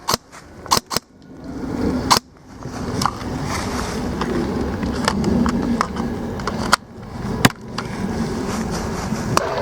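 Scattered single shots from airsoft guns, sharp cracks a second or more apart, over a steady rumbling noise.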